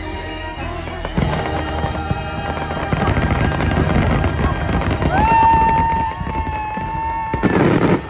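Aerial fireworks crackling and popping in a dense barrage over loud show music. A long held note sounds in the music from about five seconds in, and a heavy burst of explosions comes near the end.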